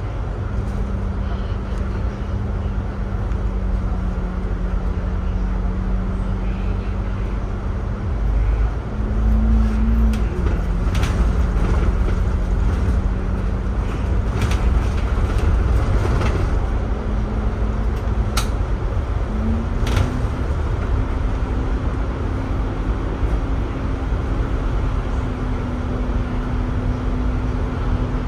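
Double-decker bus driving through a road tunnel, heard from inside: steady engine and road rumble with a low drone that steps up and down in pitch a few times. A few sharp knocks or rattles come in the middle stretch.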